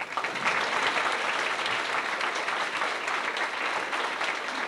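Audience applauding, a dense, steady clatter of many hands clapping.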